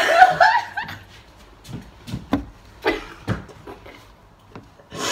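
About six short, breathy bursts of stifled laughter from people covering their mouths against the stench of an opened can of surströmming, after a trailing bit of voice at the start.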